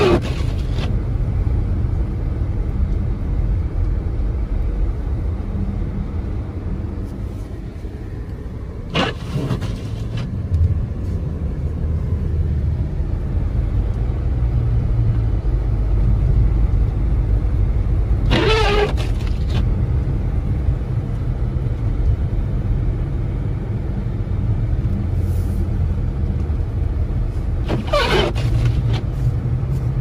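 Steady low rumble inside a moving car's cabin, from tyres on a snow-covered road and the engine. About every nine seconds the windshield wipers sweep once across the glass with a short swish: four passes in all, on an intermittent setting.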